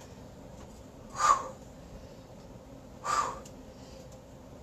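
A woman's sharp, forceful exhales, two of them about two seconds apart, breathing out with each lift during a Superman back-extension exercise.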